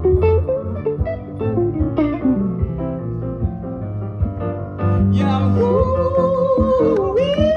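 Live guitar music. About five seconds in, a singer comes in with one long held, slightly wavering note over the guitar.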